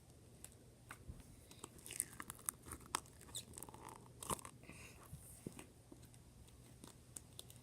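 Foam slime full of foam beads being squished and poked in its container, giving faint crunching and crackling with a cluster of sharp pops and clicks in the middle.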